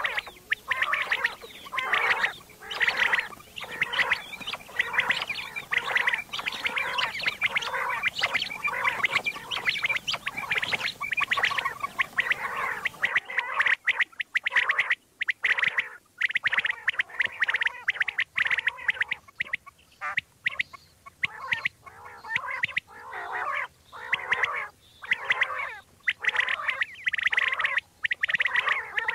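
Common quail calling: a dense run of quick, overlapping calls repeating several times a second with short breaks. The background hiss drops about halfway through.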